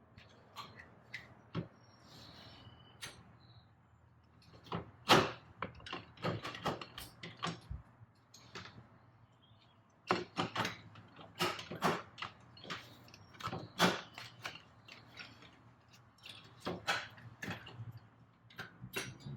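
Metal parts and tools clicking and clinking irregularly while turbo parts are worked into place in an engine bay, with the sharpest knock about five seconds in and a busier run of clicks from about ten to fifteen seconds.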